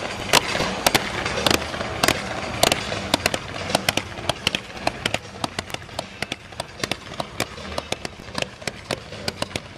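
Fireworks going off in a rapid string of sharp bangs and crackles, several a second. Louder reports come in the first few seconds, then give way to denser, lighter crackling that slowly grows fainter.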